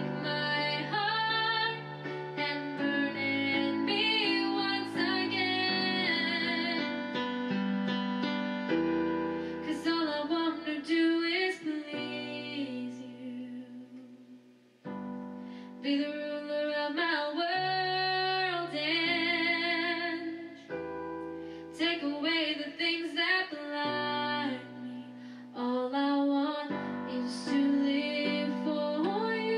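A woman singing a slow worship song with vibrato, accompanied by held chords on an electronic keyboard with a piano sound. About halfway through, the music dies away almost to nothing, then voice and keyboard come back in together.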